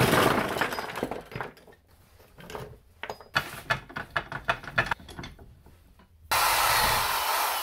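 Plastic PVC pipe fittings clattering in a plastic tub as it is moved. This is followed by a run of metal clicks and knocks as a bench vise is cranked shut on a nail gun. About six seconds in, an electric drill starts with a loud, steady whir, drilling out the nail gun's nose.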